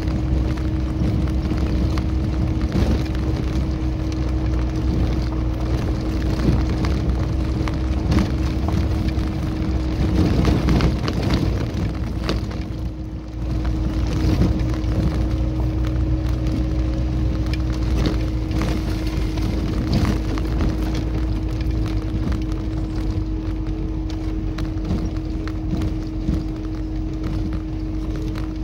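Vehicle engine running and the body rattling and knocking over a bumpy dirt track, heard from inside the cabin, with a steady hum under it. It drops briefly quieter about two-thirds of the way through, then picks back up.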